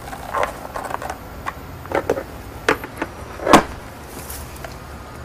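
Small clicks and knocks of hands handling coaxial cables in a plastic cable box, with a louder knock about three and a half seconds in as the box's plastic lid is shut. A steady low rumble runs underneath.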